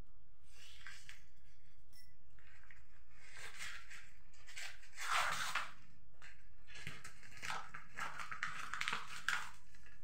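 A paper courier pouch being torn open and handled, in several rustling, tearing bursts, with bubble wrap crinkling near the end.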